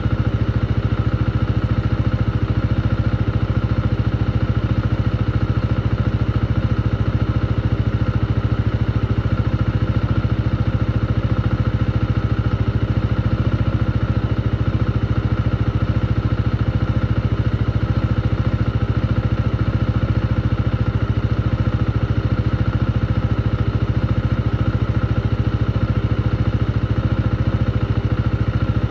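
Motorcycle engine running steadily at an even pitch and level, with no rise or fall in revs.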